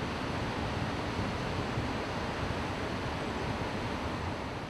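Ocean surf breaking and washing onto a sandy beach, a steady rush, with wind buffeting the microphone.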